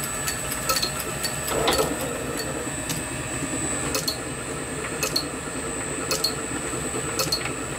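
Small vintage metal lathe running: a steady motor and drive hum with a light regular tick about once a second.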